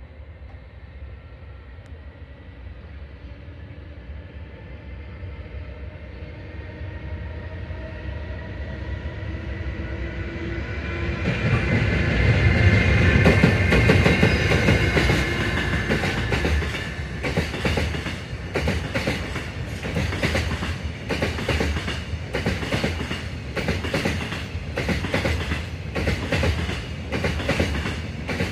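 Freight train approaching and passing on the main line. A rumble with a faint whine grows to its loudest about halfway, then a long string of wagons goes by, their wheels clattering over the rail joints in a steady run of clicks.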